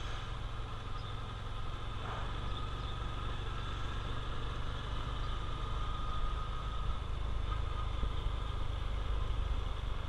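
Honda CT125 Trail 125's single-cylinder four-stroke engine running steadily at low speed.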